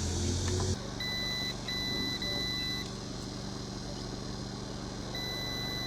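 Multimeter continuity tester beeping as its probes are touched to an electric kettle's power cord: three short beeps about a second in, then one longer beep near the end. The beep shows the cord's wires conduct, so the cord is sound.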